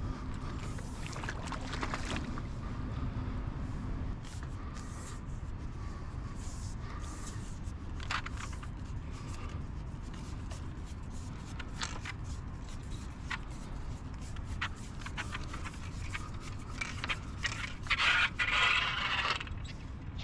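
Handling noise from a long carp fishing pole held out over the water: a steady low rumble with scattered clicks and scrapes. Near the end comes a louder scraping rustle lasting about a second and a half, as the pole is lifted and bends into a hooked fish.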